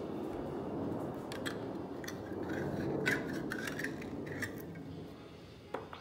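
Metal spoon scraping and clinking against the inside of an opened tin can, with scattered sharp clinks in the middle and a couple more near the end, over a steady low background noise.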